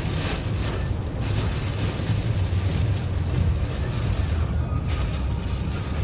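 Wind buffeting the microphone in a steady low rumble, over an even rushing hiss.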